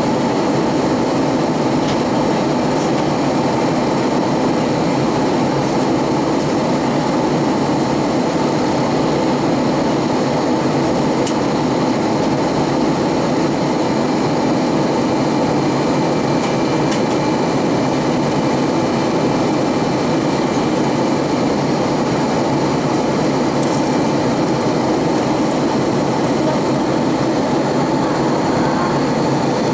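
Steady cabin noise inside an Airbus A320-232 in flight: the rush of air over the fuselage mixed with the hum of its IAE V2500 engines.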